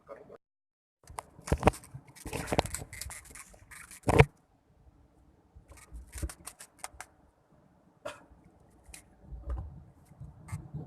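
Irregular handling noises: rustling, scraping and clicking, with a sharp knock about four seconds in.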